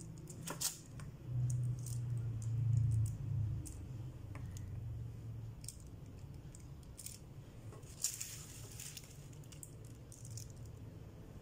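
Small handling sounds of a plastic spoon dropping dollops of soft banana-yogurt paste onto butter paper: scattered light clicks and scrapes, and a short crinkle of the paper about eight seconds in. A low hum sounds during the first few seconds.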